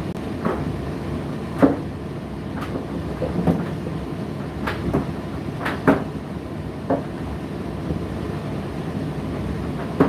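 Indesit IDC8T3 condenser tumble dryer running mid-cycle: a steady low rumble from the motor and turning drum, with irregular knocks about once a second as the load tumbles against the drum.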